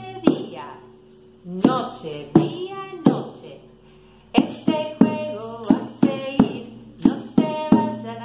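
Women singing short phrases of a children's song to a jingle-ring tambourine and bongos played by hand. There are steady percussive strikes, with pauses in the singing about a second in and around the middle.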